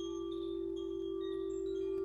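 Quartz crystal singing bowl holding one steady, sustained tone, with short, bright, high ringing notes sounding over it one after another.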